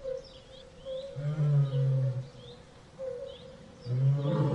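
A big cat growling: two long, low growls about a second each, over a jungle background of short, high chirping calls repeated every second or so.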